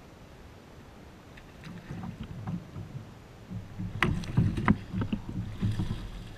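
Sharp knocks and rattles of rod, reel and kayak hull as the angler sweeps the rod to set the hook, then a hooked smallmouth bass splashing at the surface near the end.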